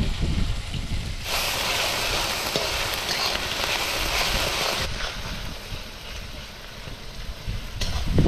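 Sliced onions, green chillies and ginger sizzling in hot oil in a karahi as a metal spatula stirs them; the sizzle comes up loud about a second in and drops back about five seconds in.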